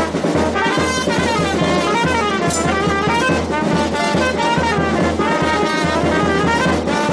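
Brass band playing a lively melody with a steady bass beat, music for a traditional dance.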